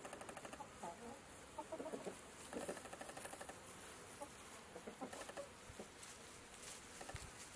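Faint short animal calls in irregular clusters, bird-like, over a light hiss.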